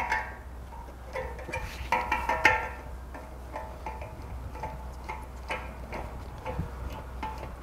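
Propane fill gun's coupling being fitted and screwed onto a cylinder's fill valve by gloved hands: a series of short squeaks and light clicks.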